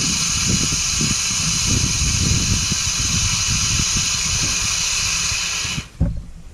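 Walk-behind lawnmower engine running while a garden hose feeds its deck washout port, so water sprays and hisses under the deck. The spray hiss stops abruptly near the end, followed by two thumps.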